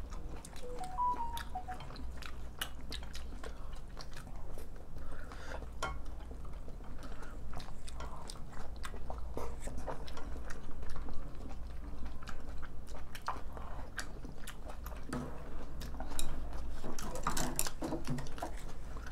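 Close-miked chewing and mouth sounds of people eating curry rice and rice bowls, with frequent small clicks of spoons and chopsticks against ceramic bowls.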